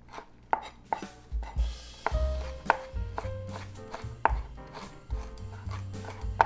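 Kitchen knife chopping ginger on a cutting board, with sharp knocks about twice a second. Background music with a bass line comes in about a second and a half in and plays under the chopping.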